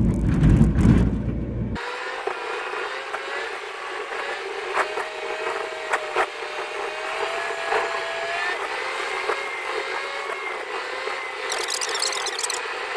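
Car driving on a highway, heard from inside the cabin: steady road and engine noise. About two seconds in, the deep rumble cuts off abruptly, leaving a thinner steady noise with faint wavering tones, then it fades out at the very end.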